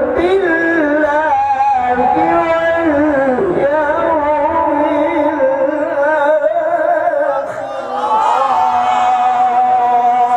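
A male qari reciting the Qur'an in the melodic tajwid style, drawing out the syllables in ornamented, wavering runs. After a brief breath about three quarters of the way through, he holds one long, steady note.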